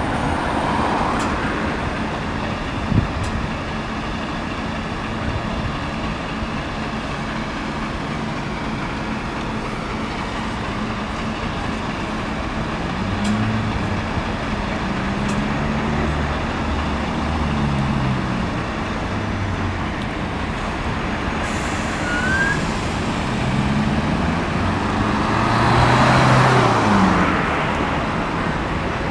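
Road traffic at a junction: a steady wash of vehicle noise, with engines revving up as vehicles pull away around the middle and again near the end, when one passes close and louder.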